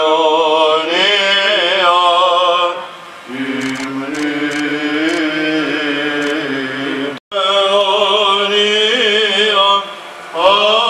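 Male voices singing Greek Orthodox Byzantine chant in long, wavering sung phrases, the closing hymn of a memorial service for the dead. The sound cuts out suddenly for a moment a little past halfway.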